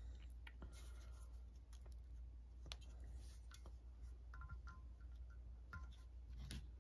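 Faint scattered clicks and light knocks of an alternator's metal stator and case being handled and set down on a cloth-covered workbench, with a couple of brief faint metallic rings about two-thirds of the way through.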